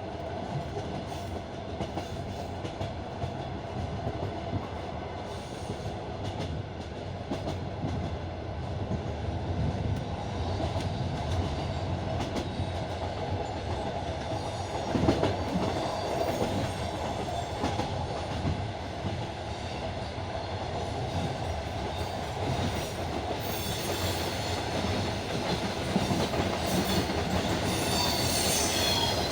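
Passenger train running, heard from inside the carriage: steady rumble with the wheels clacking over rail joints and points, a louder knock about halfway through. Near the end a high wheel squeal joins in as the level rises.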